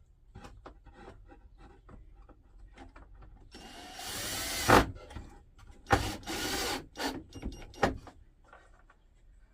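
Wooden pieces being handled: scattered light knocks and clicks, then two loud scraping stretches of about a second each, from wood rubbing against wood, with a few sharp knocks around and after them.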